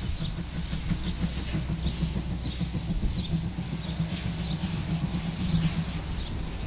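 Narrow-gauge steam tank locomotive (DR class 99.77–79, no. 99 1782-4) moving off slowly, chuffing about one and a half times a second over a low rumble, with its cylinder drain cocks open and blowing steam.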